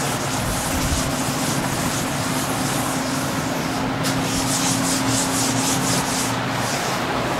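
Chalkboard duster wiping chalk writing off a blackboard in quick back-and-forth strokes, busiest in the second half.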